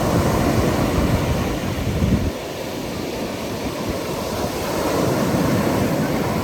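Sea waves breaking and washing on a pebble beach, with wind buffeting the microphone. The rumble swells over the first two seconds, eases, then builds again.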